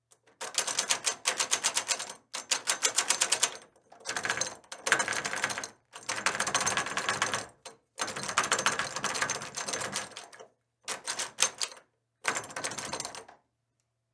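A door handle being shaken, rattling in seven rapid bursts of loose clicking with short pauses between them.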